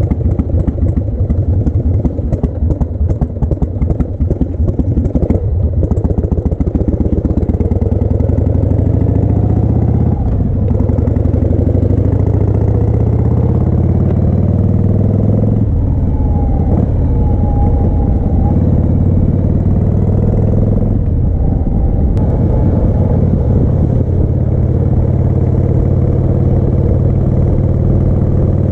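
1988 Harley-Davidson Heritage Softail's 1340 cc Evolution V-twin, hauling a sidecar, accelerating up through the gears, with shifts about ten and fifteen seconds in, then running steadily at cruise. For the first few seconds there is a rattling clatter from the rough road.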